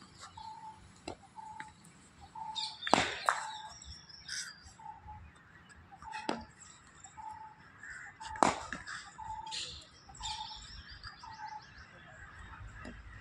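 Three sharp cracks of a cricket bat striking a leather ball, a few seconds apart. Birds chirp throughout with a short note repeated about every half second.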